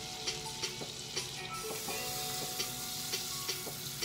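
Butter melting and sizzling in a hot frying pan, stirred with a wooden spoon, with scattered light clicks of the spoon against the pan.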